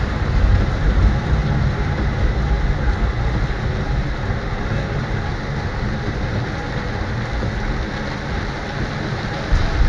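Heavy rain on a tram's windscreen and cab, heard from inside the driver's cab over the steady low rumble of the tram running.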